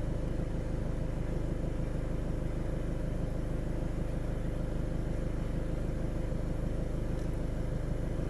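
VW Golf 7 engine idling steadily, a constant low hum.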